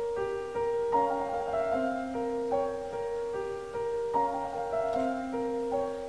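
Background piano music: a slow piece of held notes and chords, changing about twice a second.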